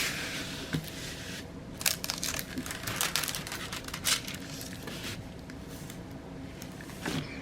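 Plastic packaging of a diamond painting kit crinkling and rustling as it is handled, in scattered bursts that are busiest around two to three seconds in.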